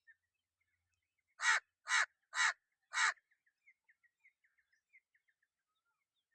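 Crow cawing: four harsh caws in quick succession, about half a second apart.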